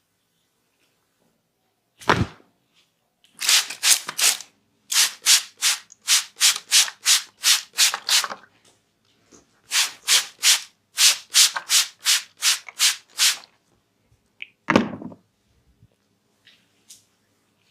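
Hands rubbing briskly during a barber massage, in quick rhythmic strokes of about three to four a second, in two runs of several seconds each. A dull thump comes shortly before the first run and another after the second.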